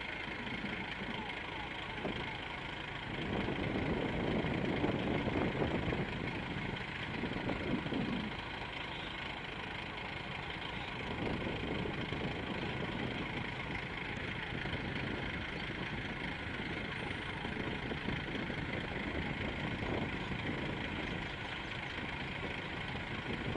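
Heavy diesel engine running steadily, swelling louder for a few seconds about three seconds in, then settling back.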